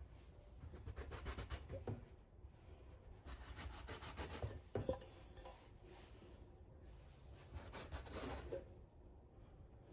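A round metal cutter pressed down through rolled bread dough, scraping against the floured countertop in three faint stretches of rubbing, with one light knock about five seconds in.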